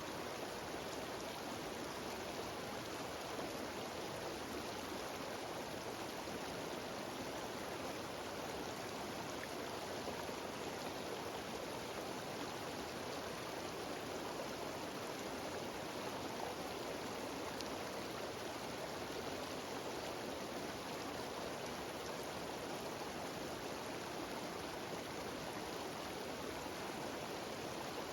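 Cascading mountain stream and waterfall rushing steadily, an even, unbroken wash of water noise.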